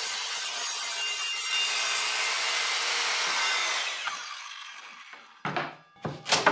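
Evolution R185 circular saw with a 7-1/4 in. multi-material blade, running on its guide track and cutting through plywood, then winding down about four seconds in. A few sharp knocks follow near the end, the loudest last, as the saw is set down on the plywood.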